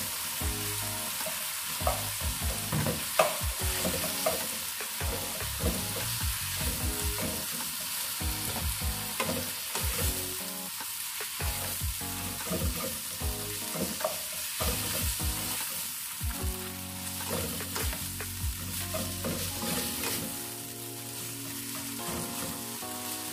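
Minced pork frying with chopped tomatoes and onions in a nonstick pan, a steady sizzle, while a plastic slotted spatula stirs, scrapes and breaks up the meat with many short knocks against the pan.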